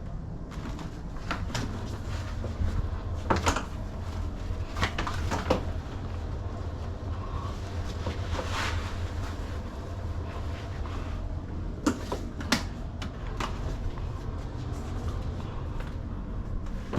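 Vacuum cleaner running with a steady low hum while its nozzle knocks and scrapes against a bed frame, with a dozen or so sharp knocks spread through.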